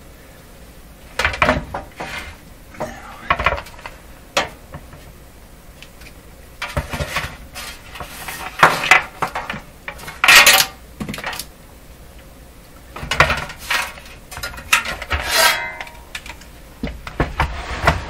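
Metal radio chassis of a Hallicrafters S-40A shortwave receiver being handled and shifted on a workbench: irregular metallic clunks, rattles and scrapes, the loudest about ten seconds in.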